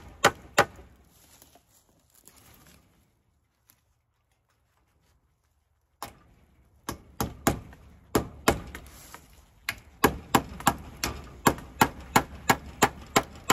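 Hammer driving fence staples into a wooden fence post to hold woven page wire: a run of sharp, even blows at about three a second that dies away. Then a few seconds of silence, and a second steady run of blows from about halfway through.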